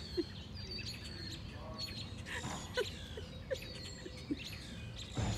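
Several songbirds chirping and singing: many short high chirps, whistles and a trill, with a few short lower notes. A brief low rumble near the end.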